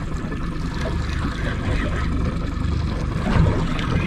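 Boat's outboard motor running at low trolling speed under wind and water noise, with a soft low thump a little past three seconds in.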